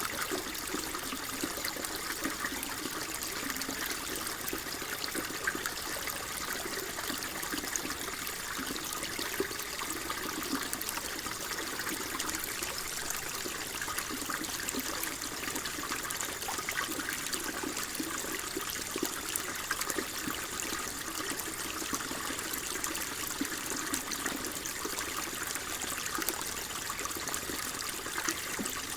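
Water flowing and trickling steadily, a continuous burble of small splashes.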